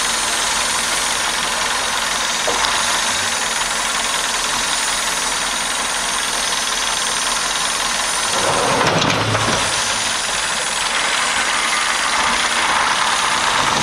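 Heavy diesel machinery running steadily, with a strong hiss over the engine noise. About eight seconds in, a deeper, louder rumble swells for a couple of seconds, then settles back to the steady running.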